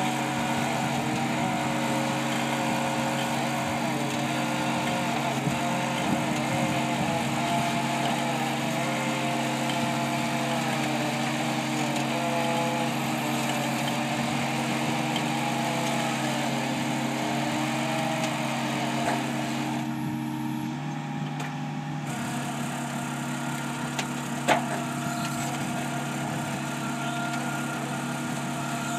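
Compact tracked excavator's diesel engine running steadily as its mast-mounted hydraulic drive head screws a ground-screw anchor into hard ground, with a higher note wavering up and down over the engine. About twenty seconds in the sound dips briefly and the engine note shifts, and a single sharp click comes a few seconds later.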